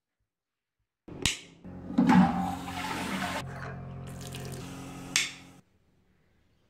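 Bathroom sink tap running into the basin, water splashing over a hand, with a steady humming tone underneath. It starts with a sharp click about a second in, has another click near the end, and cuts off suddenly.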